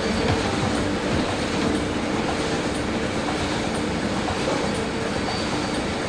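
Steady mechanical rumble and clatter of dairy milking-parlour machinery running during milking, with no sudden knocks.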